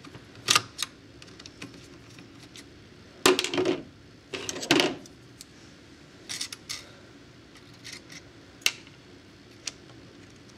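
Scattered clicks and clatters of small plastic and metal parts as a Coinco Mag bill validator's lower assembly is taken apart by hand: a screwdriver working the spring's screws and the wheels and axles coming out. The loudest clatters come about three and four and a half seconds in.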